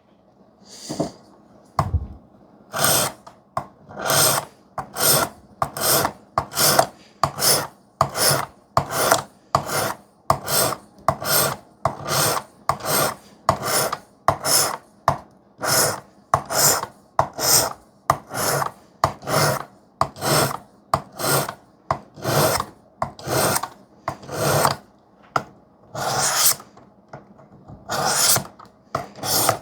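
A knife's steel blade stroked along a 320-grit sharpening stone of a Work Sharp system: a steady rhythm of rasping strokes, a little more than one a second, with a short break near the end. The strokes are raising a burr on the edge.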